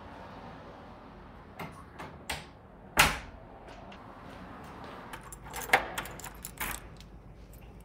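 A wooden front door handled and shut, with a loud knock about three seconds in, then keys jangling on a key ring and clicking as a key is turned in a brass deadbolt lock.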